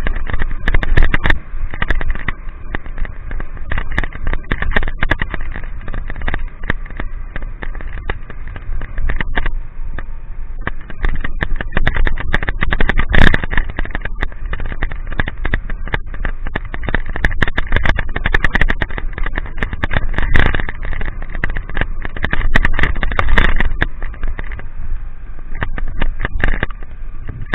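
A motorcycle riding through rain: a steady low rumble of engine and wind on the microphone, with dense crackling of raindrops striking the camera.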